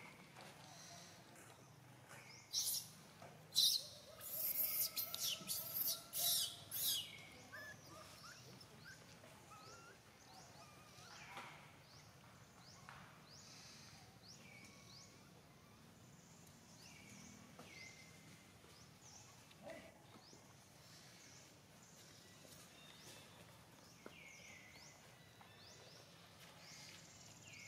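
Baby macaque screaming: a string of loud, shrill cries a few seconds in, followed by fainter short falling calls repeating.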